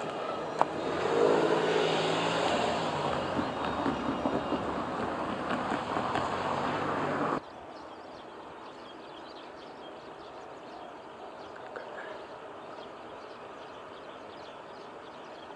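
Container freight train wagons rolling away on the rails: a steady rumble of wheels on track that slowly fades, then cuts off suddenly a little past halfway. After the cut there is only a faint, even outdoor background.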